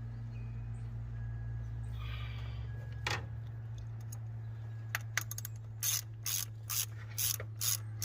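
Hand socket ratchet clicking as it runs the throttle body bolts down snug, in a steady rhythm of a little over two strokes a second that starts about six seconds in, after a few scattered clicks. A steady low hum runs underneath.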